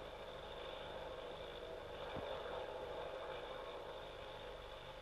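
An airplane passing overhead: a distant engine drone that swells to its loudest about halfway through and then fades, over the low steady hum of an old film soundtrack.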